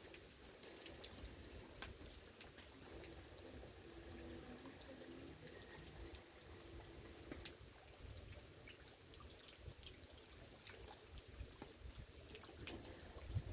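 Faint, scattered ticks and pops over a soft hiss, from a bonfire burning in light rain: raindrops dripping and the wet fire crackling.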